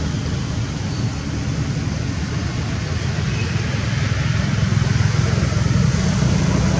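Steady low rumbling background noise with a faint hiss above it, slowly growing a little louder toward the end.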